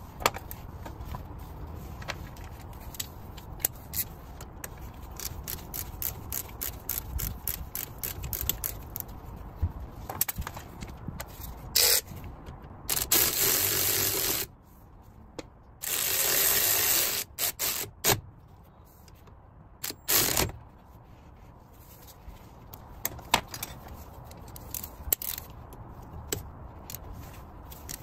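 Hand work on a car's front wheel hub: a run of light metal clicks, taps and scrapes. About halfway through come four short, loud bursts of rushing noise, the longest about a second and a half.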